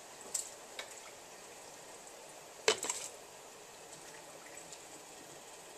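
Cooked ground beef being spooned through a plastic canning funnel into a glass mason jar: a few light taps, then one sharp knock about two and a half seconds in with a couple of smaller clicks after it.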